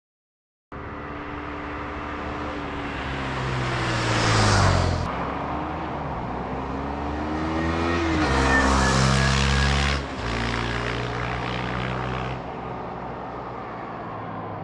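2022 KTM 390 Adventure's single-cylinder engine, revved up twice with the pitch climbing and then dropping off sharply each time, then settling back toward idle near the end.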